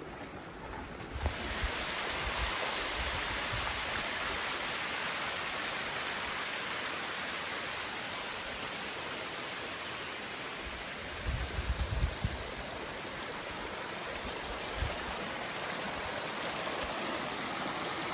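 Steady rushing of creek water, stepping up about a second in, with a brief cluster of low thumps around the middle.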